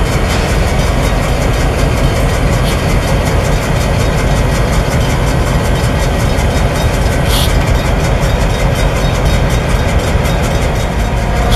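Two Canadian National GP38-2 diesel locomotives at low throttle, their non-turbocharged EMD 645 two-stroke V16 engines chugging with a steady, rapid beat over a deep rumble as the units crawl along. A brief hiss comes about seven seconds in.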